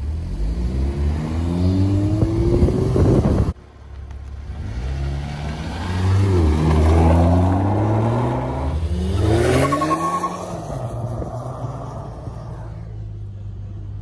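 Mazda 6 running through an aftermarket cat-back exhaust: the engine revs up with a rising note that cuts off abruptly about three and a half seconds in. The car then accelerates away, its note rising and dropping several times before fading as it drives off.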